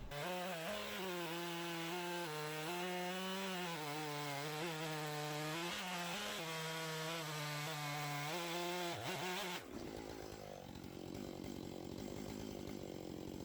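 Stihl two-stroke chainsaw on an Alaskan chainsaw mill running under load, ripping along an oak log, its engine note steady with slight dips in pitch. About nine and a half seconds in the sound changes suddenly to a rougher, less pitched noise.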